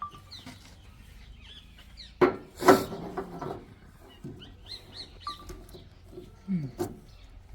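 Birds chirping and calling in short bursts, with a louder, fuller call about two seconds in.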